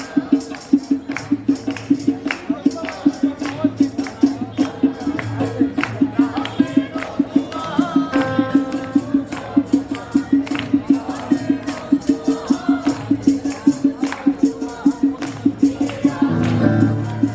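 Background music driven by a steady, quick drum beat of about four strokes a second, with a melody over it.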